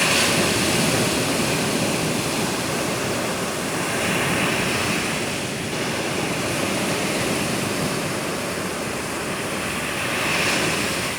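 Rough sea surf breaking and rushing on the beach as a continuous roar of waves, swelling again about four seconds in and near the end.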